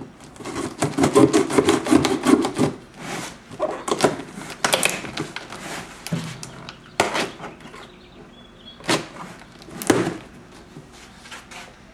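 A cardboard shipping box being opened and its packaging handled: a dense crackling and rustling in the first few seconds, then scattered knocks and thuds.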